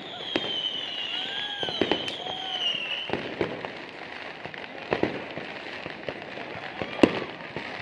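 Fireworks going off overhead: scattered sharp bangs and pops, the loudest about seven seconds in, with a high wavering whistle over the first three seconds.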